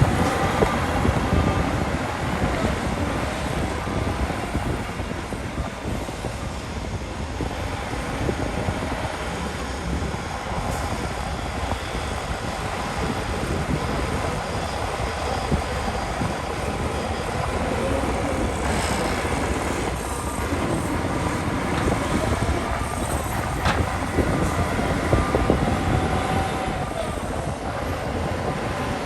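Diesel bulldozer engine running steadily while working, its pitch rising and falling slightly.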